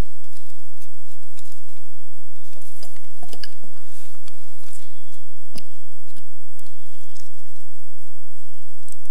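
Papers being handled and leafed through close to a desk microphone: scattered soft rustles and small clicks. Under them runs a steady low electrical hum and a faint high-pitched whine from the sound system.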